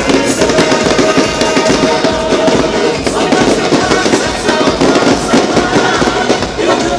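Fireworks display crackling and popping densely and continuously, mixed with music playing.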